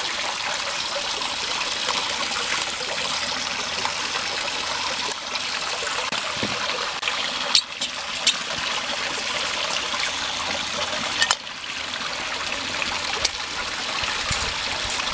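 Creek water trickling and flowing steadily, with a few sharp metal clicks from a small folding titanium backpacking stove being handled as it is unscrewed from its gas canister and its pot supports folded.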